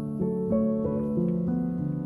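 Background piano music: a melody of sustained notes, changing pitch about three times a second.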